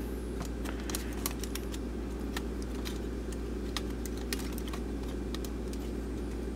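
Small, irregular metallic clicks and ticks as the sheet-metal top plate of a car CD changer mechanism is worked loose by hand, over a steady low hum.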